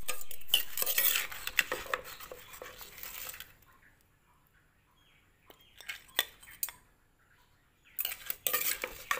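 A spoon clattering and scraping in a mortar as blue crab salad is stirred and scooped out to serve. It goes for about three seconds, drops to a few scattered clicks, then clatters again near the end.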